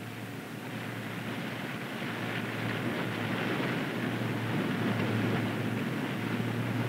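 Submarine surfacing: a steady rush of water and sea noise over a low hum, slowly growing louder.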